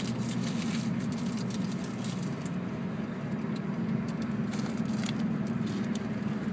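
Steady low drone of a car driving, heard from inside the cabin, with scattered faint clicks and crackles over it.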